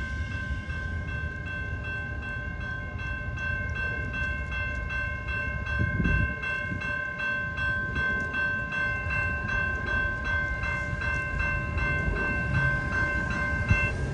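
Railroad grade-crossing warning bell ringing in rapid, even strokes while the train clears the crossing. It falls silent shortly before the end as the gates begin to rise. A low rumble runs underneath.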